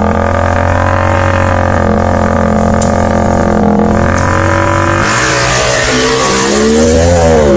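A steady droning tone, then about five seconds in a motorcycle engine revving, its pitch rising and falling.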